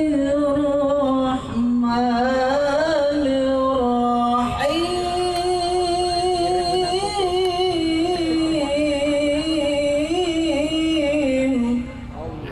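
A man's solo voice singing a slow, ornamented devotional melody, holding long notes with a wavering vibrato and pausing briefly twice. It fades out near the end.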